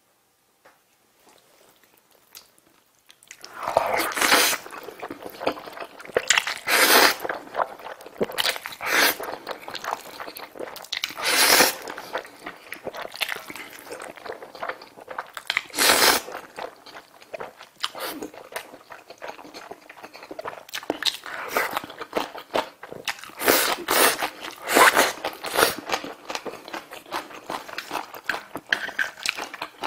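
Close-miked eating of Jjajjaroni black-bean-sauce instant noodles: loud noodle slurps every few seconds with wet chewing between them, starting after a few seconds of near silence.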